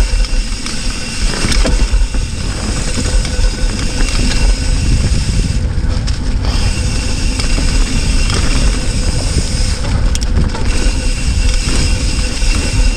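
Hardtail mountain bike ridden along a dirt trail: tyres rolling over the ground and the bike rattling, under heavy wind rumble on the action camera's microphone.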